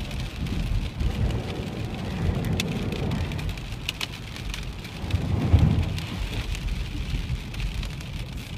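Car driving on a wet road, heard from inside the cabin: a steady low road rumble with a hiss of tyres on wet pavement and scattered light ticks of rain on the windshield. About five and a half seconds in, the low rumble swells briefly.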